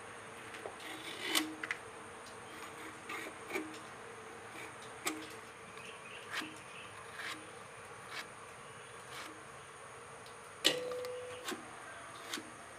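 Curved knife cutting through ash gourd flesh in short, crisp strokes, about one a second and irregular, the loudest near the end with a brief ring from the blade. A faint steady hum lies under the cuts.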